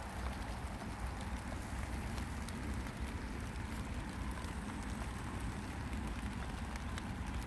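Light spring rain falling steadily, with scattered sharp drop ticks, over a steady low rumble.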